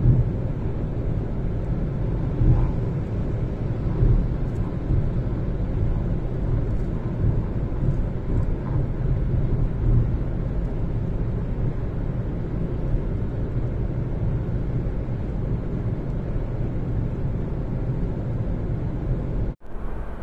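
Car driving along the road: steady engine and road noise, heavy in the low end, with a few small bumps. It cuts out abruptly for a moment near the end.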